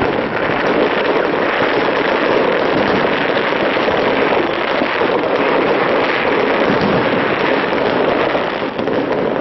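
A fireworks display: many shells bursting and crackling in rapid, overlapping succession, merging into a dense continuous rattle.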